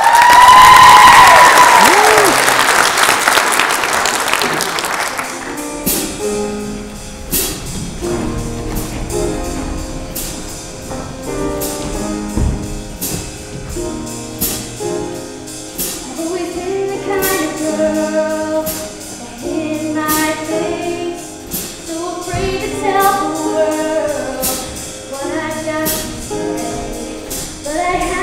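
Show choir singing in chorus over music with a steady beat. The first few seconds are the loudest, with audience cheering and applause over the singing.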